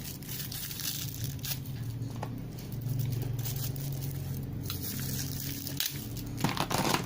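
Crinkling plastic and crunching ice as a Zippo lighter frozen in a block of ice is handled, in scattered short crackles with a denser burst near the end, over a steady low hum.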